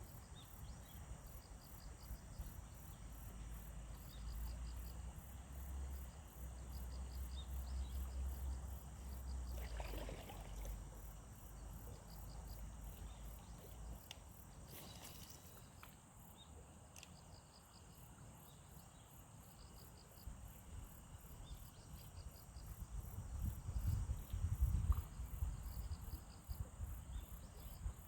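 Insects chirping steadily: one keeps up a fast, even high-pitched pulsing, while another calls in short pulsed bursts at a lower pitch. A low rumble comes and goes beneath them, strongest near the middle and again near the end.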